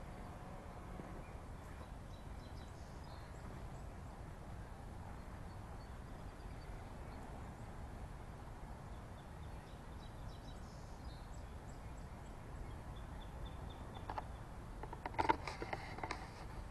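Steady low outdoor rumble with faint bird chirps now and then, then a few close, sharp knocks and rustles near the end.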